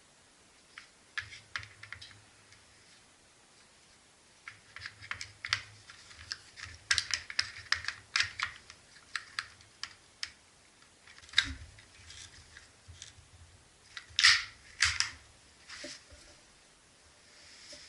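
Irregular clicks, knocks and light rattles of hard plastic and metal chainsaw parts being handled and fitted together during assembly, with two louder knocks, one near the middle and one about three-quarters through.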